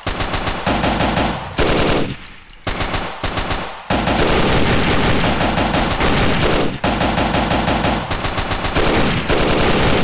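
Rapid automatic gunfire, several long bursts of shots separated by brief pauses, the longest burst lasting close to three seconds.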